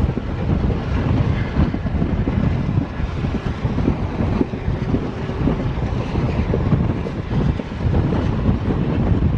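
Steady rumble of an ICF passenger coach running at speed on a diesel-hauled express train, with wind buffeting the microphone.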